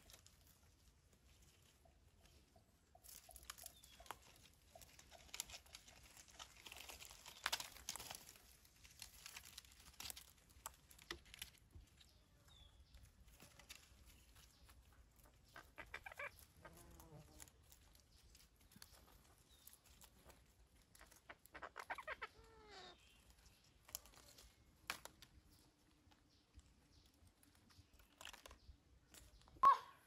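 Faint rustling of leaves and twigs as parakeets feed in a bush, with a few short bird calls around the middle and later on.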